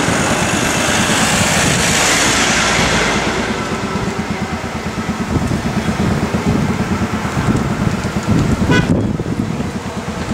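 A Mercedes van ambulance from the race convoy drives past close by, its engine and tyre noise loudest over the first few seconds and then easing, with wind buffeting the microphone throughout. A brief toot sounds near the end.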